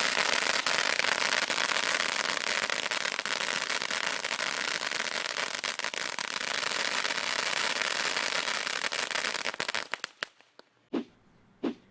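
A ground firework fountain crackling densely and without a break, with a rapid spray of small pops. It cuts off abruptly about ten seconds in, and two single sharp pops follow near the end.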